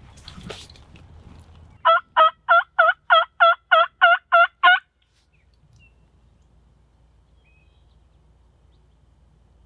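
A run of about ten evenly spaced turkey yelps, roughly three a second for about three seconds, each note dipping and rising in pitch.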